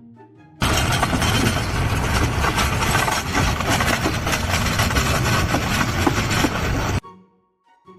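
Loud, steady machine noise, most like a running engine, that starts abruptly just over half a second in and cuts off suddenly about a second before the end. Faint background music plays either side of it.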